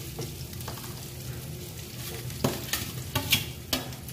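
Mashed boiled potatoes tipped from a steel bowl into a frying pan of hot oil and spices, with a faint frying sizzle. From a little past halfway there are several sharp metal knocks and scrapes as the steel bowl is tapped and scraped against the pan.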